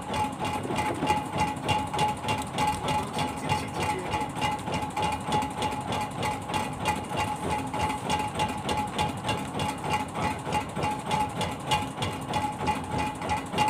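Fishing boat's engine running steadily, with a fast, even beat and a steady whine over it.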